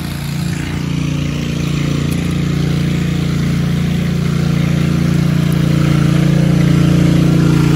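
A motor running steadily with a constant low hum, slowly growing a little louder.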